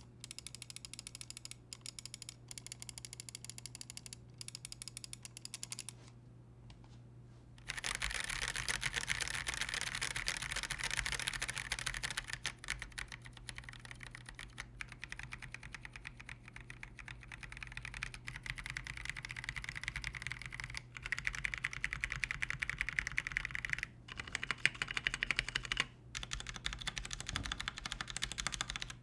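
Typing on an Akko PC75B Plus wireless 75% mechanical keyboard, a rapid run of keystroke clicks. About six seconds in there is a short pause, after which the typing comes back louder.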